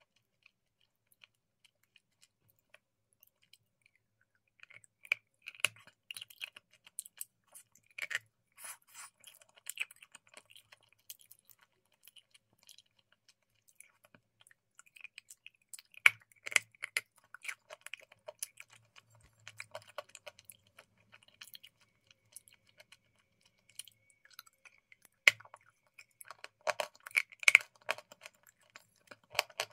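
Close-up mouth sounds of eating a soft cream: wet smacking and sharp clicks in scattered clusters, starting a few seconds in and busiest near the end.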